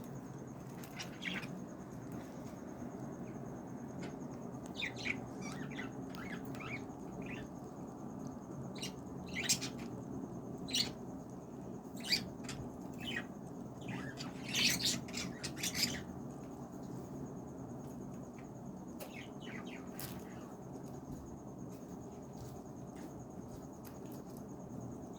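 Small birds chirping: short, sharp high chirps coming singly and in quick clusters, busiest about fifteen seconds in, over a steady low background hum.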